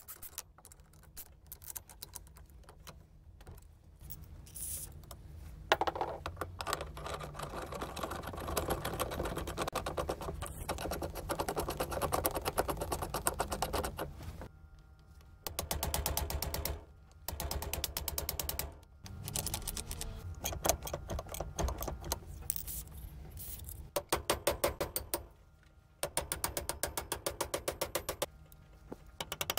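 Fast, even clicking of a ratchet wrench tightening bolts, mixed with the clatter of hand tools and steel parts on the cast-aluminium mortiser stand, broken by two short pauses.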